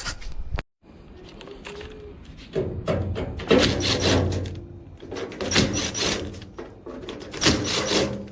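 Knocking and scraping of tools working on a clothes dryer's sheet-metal panel while Phillips screws are backed out. The noise comes in bursts about every two seconds.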